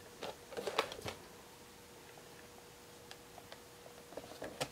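Hands handling a cardboard toy box with a clear plastic window: a few light taps and crinkles in the first second, scattered faint clicks after, and another tap just before the end. A faint steady hum lies underneath.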